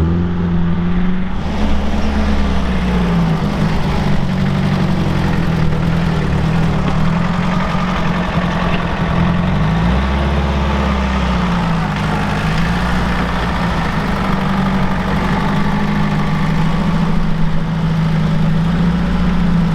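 Carbureted car engine idling unevenly while warming up after a long time unused, its speed slowly drifting up and down; the owner takes the unsteadiness for carburetor trouble.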